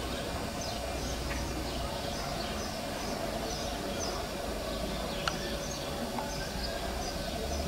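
Birds chirping, short high calls repeated every half second to a second, over a steady outdoor background hum; a single sharp click about five seconds in.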